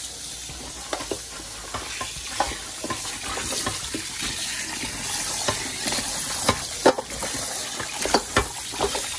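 Tap water running while raw ribs are scrubbed by hand with lemon in a bowl or sink, with irregular wet splashes and knocks of meat against the bowl.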